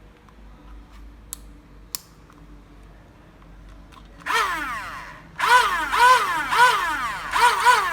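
Small DC motor of a homemade mini hand drill switched on and off in short bursts, each time whining up in pitch and winding back down, about twice a second. Two sharp clicks come first, about a second and two seconds in.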